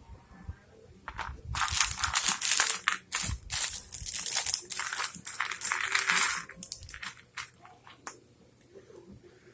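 Small plastic Lego pieces clattering and rustling as a hand rummages through them, a dense run of about five seconds starting a second and a half in, with a few lone clicks after.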